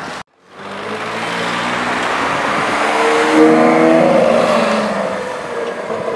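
Lamborghini supercar engine accelerating hard away from a standstill. The engine note climbs in pitch and is loudest about four seconds in, then fades as the car pulls away.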